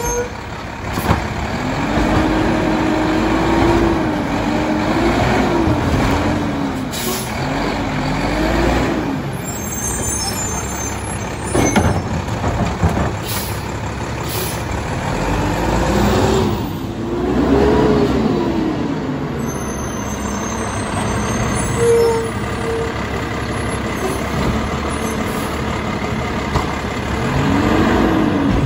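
Mack LEU garbage truck's diesel engine being revved hard, its pitch rising and falling in several long swells while the McNeilus side-loader's hydraulic arm and packer work. There are several short sharp hisses and knocks in between.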